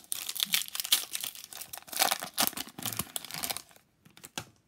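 Foil Pokémon booster-pack wrapper being torn open and crinkled by hand, a dense crackling rustle that stops after about three and a half seconds.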